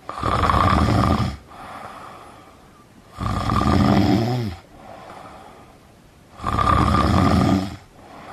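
A person snoring: three loud snores about three seconds apart, each followed by a quieter, longer breath.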